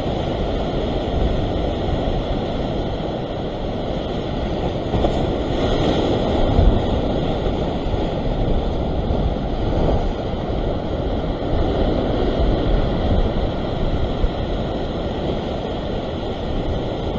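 Ocean surf washing and surging over a rock ledge close by, a steady rushing with wind buffeting the microphone; it swells a little about six seconds in.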